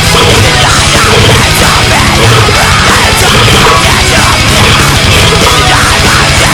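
Loud heavy metal music with fast, driving drums and distorted guitars.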